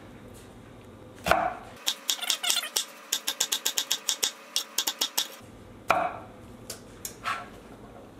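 Chef's knife chopping an onion on a wooden cutting board: a fast, even run of knife strikes, about five or six a second, for a few seconds. A louder short sound comes just before the chopping and another just after it.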